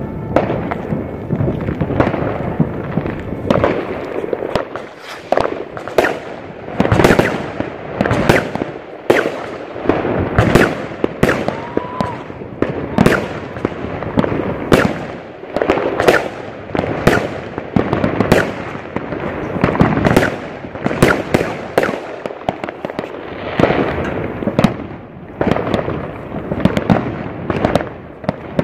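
Fireworks going off in a dense, continuous barrage: sharp bangs and crackles, two or three a second, some loud and close, others fainter.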